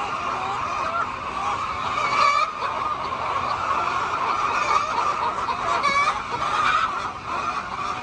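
A large flock of chickens clucking and calling together in a steady dense chatter, with a few louder squawks standing out now and then.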